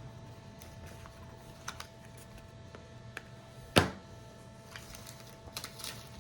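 Light clicks and taps of trading cards being handled, with one sharp, much louder tap a little under four seconds in.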